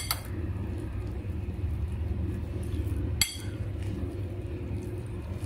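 Metal spoon stirring a chicken and cream-cheese mix in a ceramic bowl. It clinks sharply against the bowl twice, once at the start and again a little past three seconds in, over a steady low hum.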